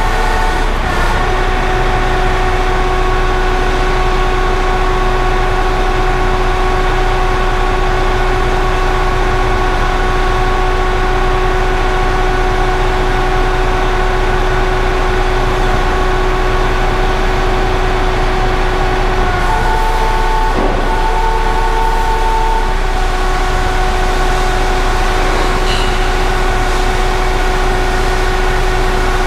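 Truck engine running with the side-tipper's hydraulics engaged, giving a steady whine over a low rumble as the front trailer tips its load of raw sugar. A second, higher tone sounds for about three seconds, with a short break, about twenty seconds in.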